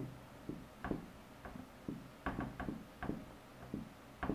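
Dry-erase marker writing on a whiteboard: an irregular run of a dozen or so short, faint strokes and taps as the letters are drawn.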